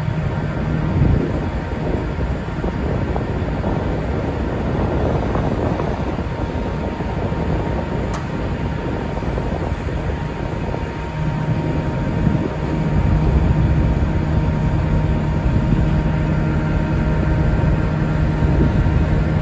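Workboat's engine and hydraulic deck crane running with a steady low hum while the crane lowers a life-raft canister. The hum gets louder about twelve seconds in.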